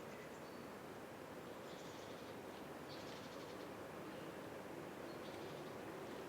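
Small birds giving faint, high chirps, with three short spells of rapid twittering about two, three and five seconds in, over a steady low background hum.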